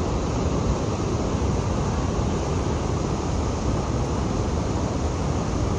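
Niagara Falls' water pouring over the brink: a loud, steady, unbroken rush, heaviest in the low end.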